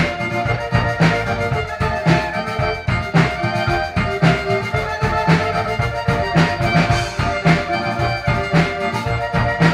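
Instrumental Tyrolean-style folk music led by an accordion, with sustained chords over a steady beat and low bass notes about twice a second.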